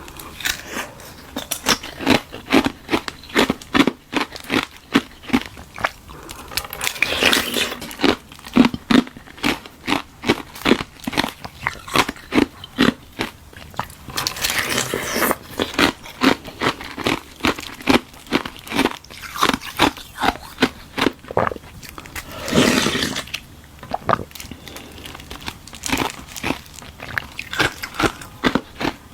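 Ice frozen from tartary buckwheat tea being bitten and chewed: a quick, steady run of sharp crunches, with a few longer, louder crackling bites along the way.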